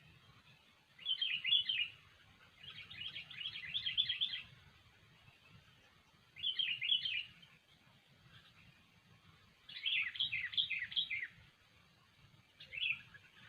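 Sooty-headed bulbul (kutilang) singing in five bursts of quick, chattering notes, each a second or two long with short pauses between.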